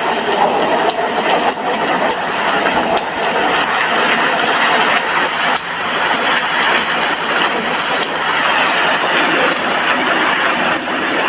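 Steady rain falling, a dense even hiss sprinkled with many small ticks of drops.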